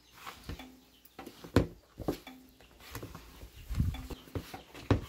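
Metal spoon knocking and scraping against a plastic bowl as flour is worked into a stiff cookie dough, in irregular clacks and dull thuds, loudest about a second and a half in.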